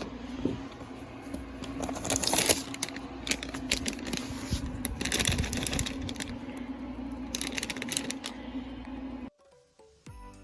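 Rustling and crinkling with scattered clicks in irregular clusters over a steady low hum; it cuts off suddenly near the end.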